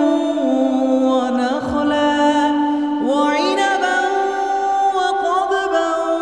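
A man reciting the Quran in melodic chant, holding long notes with ornamented turns of pitch. A new phrase begins with a rising note about halfway through.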